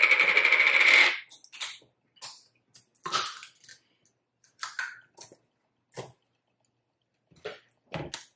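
Close-miked eating sounds from chewing boneless chicken wings: a loud burst of noise lasting over a second at the start, then short scattered wet smacks and crunches every second or so.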